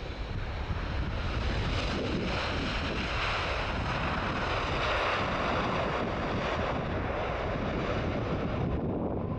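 Boeing 777 freighter's GE90 engines spooling up in reverse thrust on the landing rollout: a broad rushing noise that builds about two seconds in and holds steady, its upper part falling away near the end. Wind rumbles on the microphone underneath.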